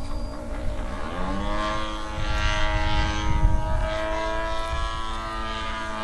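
SC 108 engine of a Seagull Harrier radio-controlled model plane, turning a 14x8 propeller, running in flight. The engine note rises about a second in, then holds steady.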